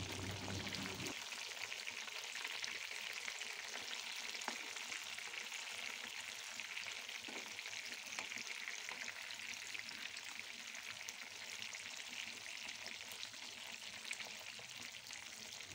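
Fish pieces shallow-frying in hot oil in a pan on medium heat: a steady, fine crackling sizzle, with a few faint clicks of a metal spatula against the pan.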